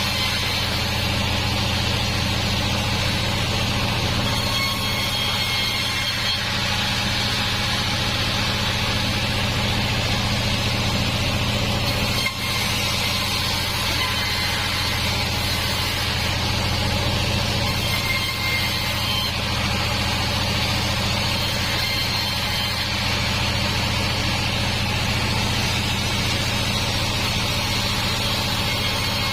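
Band sawmill machinery running steadily: a constant low machine hum with a hiss above it, with a brief dip about twelve seconds in.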